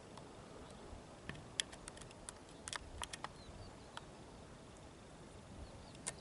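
Faint, irregular small clicks and ticks over a quiet background, most of them bunched in the first half.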